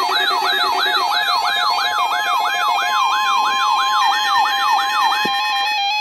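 Weather radio receivers sounding their alert alarms for a Required Weekly Test: a siren-like rising-and-falling sweep repeating about three times a second over steady electronic tones. A steady single tone joins about halfway through, and both it and the sweep stop shortly before the end, leaving the steady tones.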